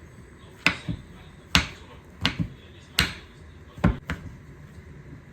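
About eight sharp knocks, several in close pairs, from a kitchen utensil striking a pot while potatoes are being mashed.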